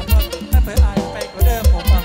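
Live mor lam sing band music: a fast, steady kick-drum beat with a wavering melody line over it.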